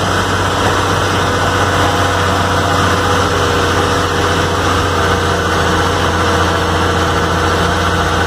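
Inline-six diesel engine of a 1969 Mercedes-Benz L-1111 truck running steadily while driving, heard from inside the cab as a loud, even drone.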